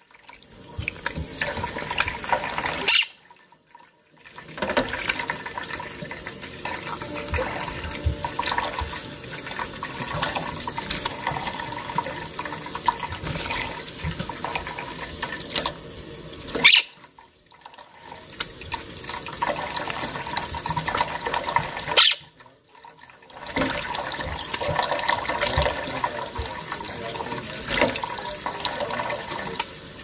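Tap water running into a stainless steel sink while a Quaker parrot splashes in it, flapping and ruffling its feathers as it bathes. The water sound drops out briefly three times.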